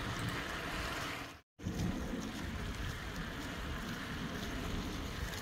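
Steady outdoor noise with wind rumbling on the microphone, cut off by a brief dropout about a second and a half in.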